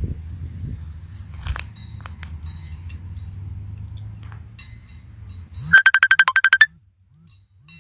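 Phone ringing: a loud, rapid trill of electronic beeps lasting about a second, about six seconds in, over a low steady rumble.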